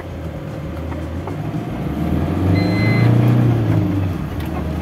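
Diesel engine of a loaded Tata Intra V50 pickup pulling as the truck accelerates up to speed for a brake test; the engine note swells to its loudest about three seconds in, then eases. A short electronic beep sounds about two and a half seconds in.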